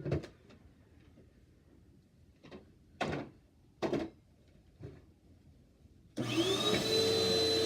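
A few scattered knocks, then about six seconds in a Bissell Powerforce Helix upright vacuum cleaner is switched on: its motor spins up with a short rising whine and settles into a steady run.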